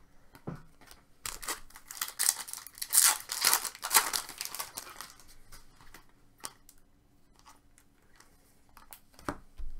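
Trading-card pack wrapper being torn open and crinkled: a dense run of tearing and crinkling in the first few seconds, then fainter scattered rustles and clicks of paper and card handling.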